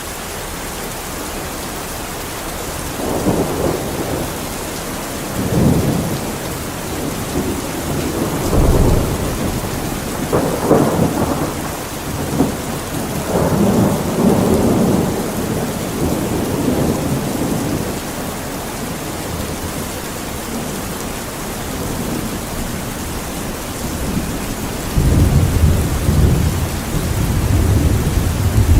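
Steady heavy rain with rolling thunder, the low rumbles swelling and fading every few seconds and the longest, loudest one coming near the end.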